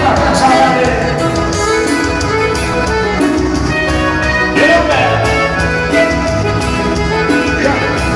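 Upbeat Latin dance music with a singing voice, playing loud and steady.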